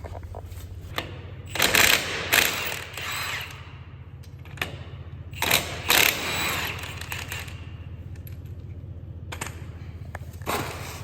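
Impact wrench run in two bursts of about two seconds each on a truck wheel's lug nuts, over a steady low hum.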